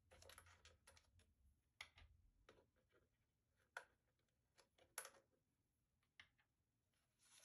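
Faint clicks and plastic handling sounds from a DJI RC remote controller as its control sticks are taken out of their storage slots on the underside. The sharpest clicks come about four and five seconds in.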